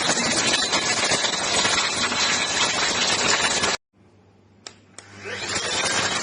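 Cordless handheld vacuum cleaner running with a steady rushing noise, which stops abruptly a little under four seconds in. After two clicks it spins back up with a rising whine to full speed.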